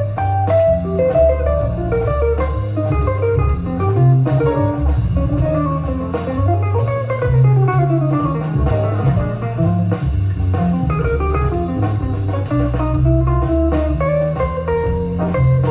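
Music with guitar and bass guitar over a steady beat.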